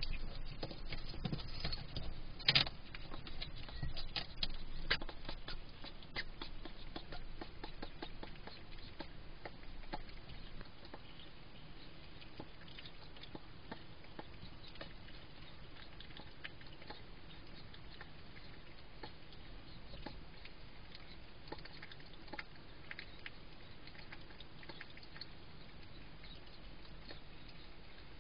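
A hedgehog eating, crunching food with a dense run of small clicks and rustles. These are busier and louder for the first ten seconds or so, then settle into a fainter, steady patter of chewing.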